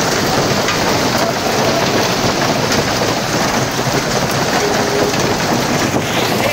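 Hail and heavy rain falling hard on a street, a loud, dense, steady hiss.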